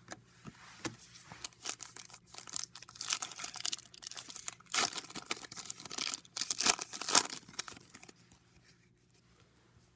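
A trading card pack wrapper being torn open and crinkled by hand, a run of crackling rips and rustles that stops about two seconds before the end.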